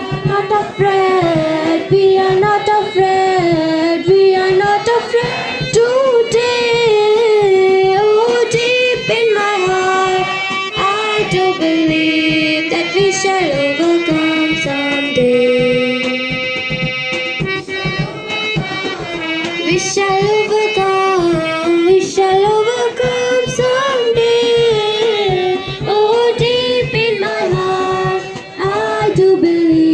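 A school student singing a melodic devotional-style song at a morning assembly, with instrumental accompaniment and a drum keeping a steady beat.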